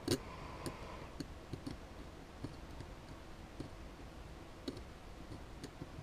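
Faint, irregular small clicks of a steel dental pick tapping and scraping on a circuit board's connector pins, the loudest right at the start.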